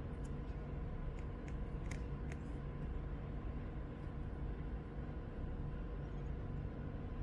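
A few light, separate clicks of mechanical keyboard keys in the first two and a half seconds, over a steady low background hum.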